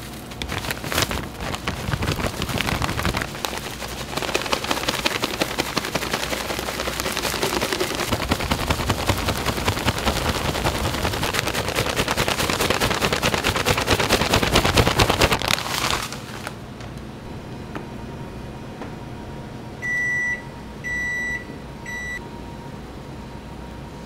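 Firewood burning in a grilling fire, with dense crackling and popping that grows louder and then cuts off suddenly. Near the end, three short high beeps.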